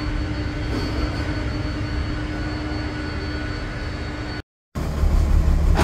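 Twin-engine jet airliner's engines running steadily at low power, a rushing noise with a steady high-pitched whine. About four and a half seconds in it cuts off abruptly, and after a moment of silence a louder low engine rumble begins.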